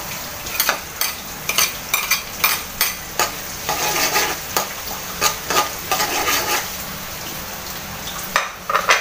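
Minced garlic sizzling in melted butter in a steel wok, stirred with a metal ladle that clinks and scrapes against the pan again and again.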